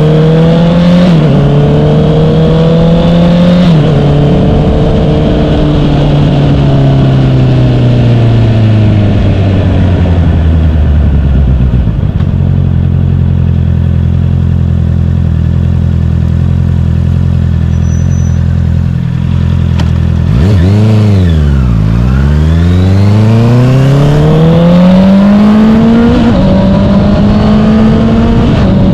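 Honda CBR650R inline-four running through an Akrapovic full-system exhaust with the inner silencer removed. It accelerates and upshifts twice in the first few seconds, the revs fall away as it slows and hold steady for several seconds, then the revs drop and climb again with another upshift near the end.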